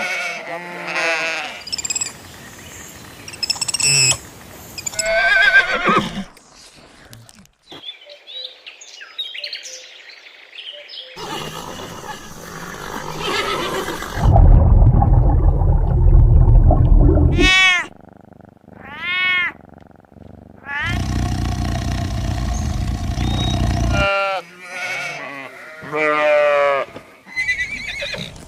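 A series of different animal calls, one clip after another, with abrupt changes between them: short pitched calls, a few arching high calls, and two longer, loud, deep stretches.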